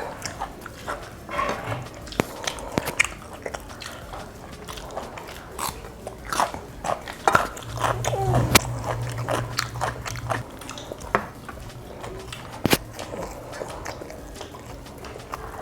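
Close-up eating sounds: biting and chewing food, with many irregular sharp clicks and crunches. A brief low hum with a short gliding tone comes a little past the middle.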